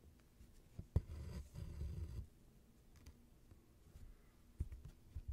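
Hand cross-stitching: a needle and embroidery floss pulled through cross-stitch fabric stretched in a hoop. A sharp tick about a second in is followed by about a second of rasping as the floss is drawn through, then a few faint ticks of the needle.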